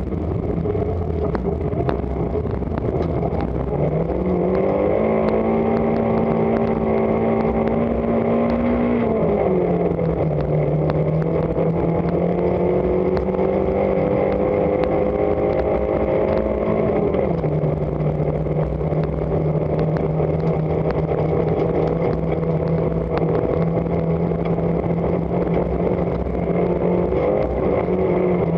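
Rally car engine heard from inside the cabin at speed on a snowy stage, with steady road and tyre noise beneath it. The revs rise about four seconds in and hold, fall back twice, a little after the halfway mark and again later, then run steady.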